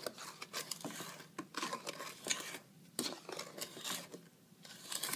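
Wooden spoon stirring and scraping through a thin, lumpy batter in a stainless steel bowl, pressing clumps of cake mix against the side: irregular scrapes and soft knocks, with two short pauses.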